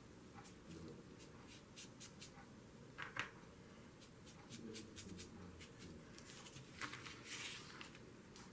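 Faint scratchy strokes of a fan paintbrush dabbing acrylic paint onto a paper frame, with a louder paper rustle a little past seven seconds as the frame is picked up.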